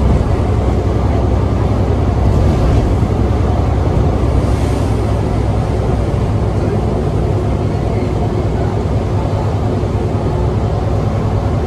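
Inside an Alexander Dennis Enviro400 (E40D) double-decker bus under way: a loud, steady diesel engine drone with road noise.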